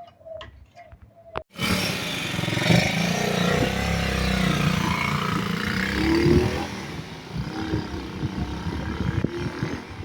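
Italika FT150 motorcycle's single-cylinder four-stroke engine, freshly rebuilt with a new cylinder and piston, coming in suddenly about a second and a half in and running loud, then quieter after about six seconds.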